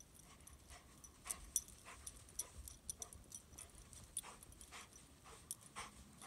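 Footsteps crunching in snow: irregular short crunches, several a second, starting about a second in.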